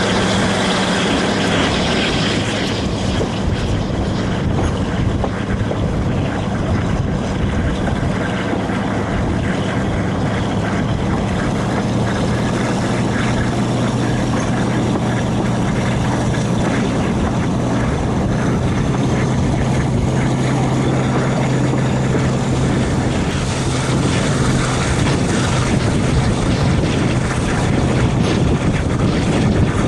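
Class 42 Warship diesel-hydraulic locomotive under power on its one working engine, heard from the cab side window as a steady engine drone mixed with wind rush and wheel-on-rail noise. The engine note shifts slightly about a dozen seconds in.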